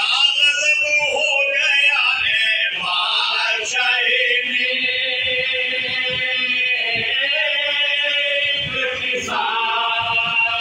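A group of men chanting an Urdu marsiya (Shia mourning elegy) in unison, unaccompanied, with long drawn-out notes through the middle.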